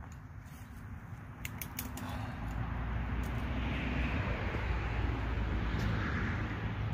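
A motor vehicle passing on a nearby road: tyre and engine noise swells over about three seconds into a steady rush with a low rumble. A few faint clicks come about one and a half seconds in.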